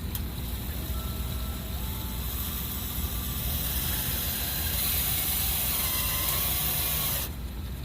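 Cordless drill driving an exterior screw into a wooden porch post. It whirs for about four seconds and stops abruptly when the trigger is released, over a steady low rumble.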